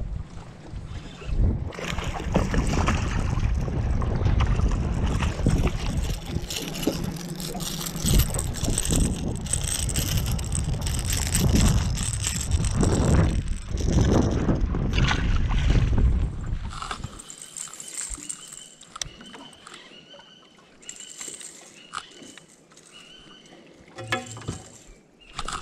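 Wind buffeting the microphone over the noise of a small boat on the water, loud for most of the stretch, then dropping away about seventeen seconds in to a quiet spell with faint, short, high ticks.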